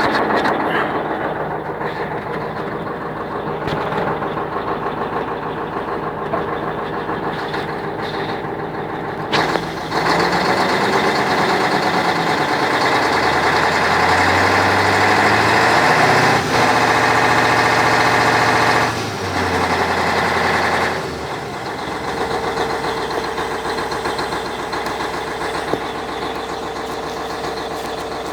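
YaMZ-6581.10 V8 diesel engine running. It is revved up about ten seconds in, held at higher speed, and drops back to idle a little after twenty seconds. The owner is chasing an unexplained knock in it.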